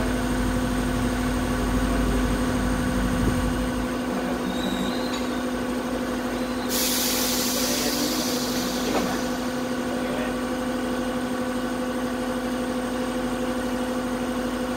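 Steady mechanical hum with a constant low tone, and a short hiss of air about seven seconds in.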